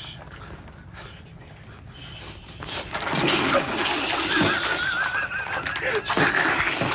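Stifled high-pitched squeals and cries from people straining to keep quiet, starting about three seconds in, with one long wavering squeal in the middle.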